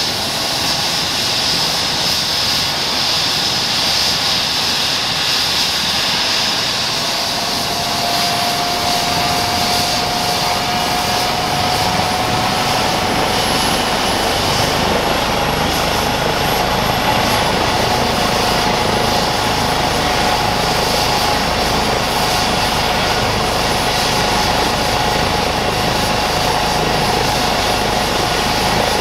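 Airbus H135 P3 helicopter with its two Pratt & Whitney PW206B3 turboshaft engines running on the ground, main rotor turning. A turbine whine rises slightly in pitch over the first half and then holds steady, while a deep rotor rumble grows in beneath it about ten seconds in, as the helicopter runs up before take-off.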